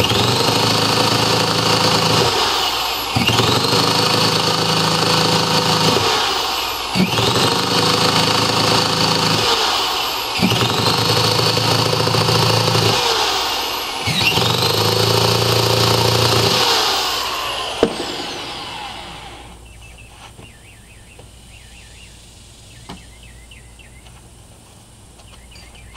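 Hand-held electric starter spinning a Webra 61 glow engine in a ducted-fan unit in five bursts of two to three seconds each, each rising in pitch as it spins up and dropping as it lets off; the engine does not catch. The cranking stops about three-quarters of the way through, leaving faint bird and insect chirps.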